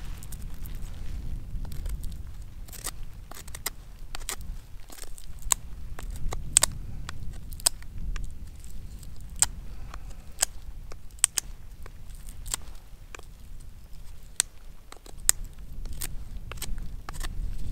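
Knife whittling a wooden stick: irregular sharp cuts and scrapes, several a second, as shavings come off the wood.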